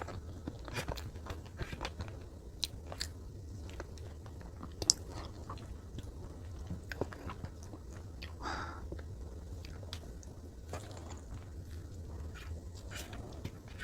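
Close-miked mouth sounds of someone eating Godiva salted caramel chocolate cake: soft chewing with scattered wet clicks and smacks. A sharp click about five seconds in is the loudest.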